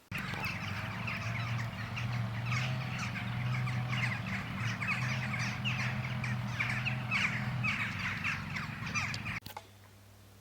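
Many birds calling in quick, dense succession over a steady low hum. The sound starts suddenly just after the beginning and cuts off suddenly near the end.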